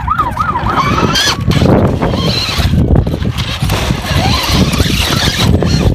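Electric motor and gears of an RC rock-crawler truck whining, the pitch swooping up and down several times in the first second as the throttle is blipped, then fainter whines over a rough, steady scrabbling and rumble of the truck working over rock, with wind on the microphone.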